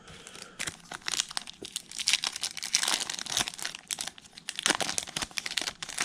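Foil wrapper of a Topps Chrome trading card pack crinkling and tearing as it is ripped open, a dense run of irregular crackles.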